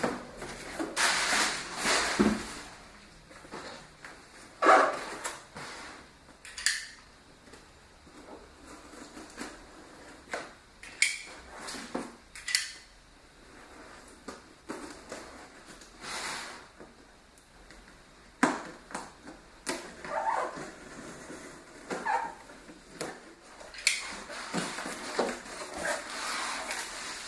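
Cardboard shipping boxes and packing being opened and handled: irregular scrapes, rustles and knocks.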